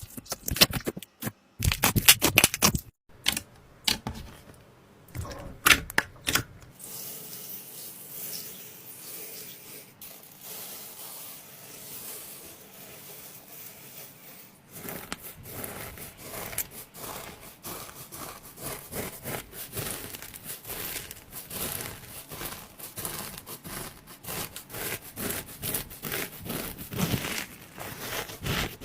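Slime being squeezed and pressed by hand, making quick sticky clicks and pops. There are sharp loud pops in the first several seconds, a quieter stretch, then a dense run of rapid clicking from about halfway through.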